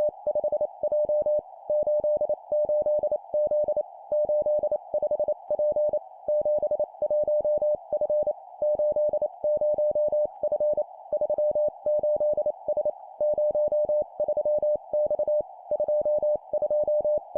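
Morse code (CW) practice tone sent at 25 words per minute: a single steady mid-pitched beep keyed in rapid dots and dashes, forming three-character groups of two numbers and a letter with brief pauses between groups. A faint band of hiss sits around the tone, like a receiver's filtered noise.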